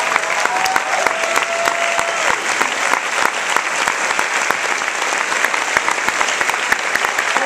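Large theatre audience applauding: dense, steady clapping from many hands. For the first two seconds a held tone sounds over the clapping.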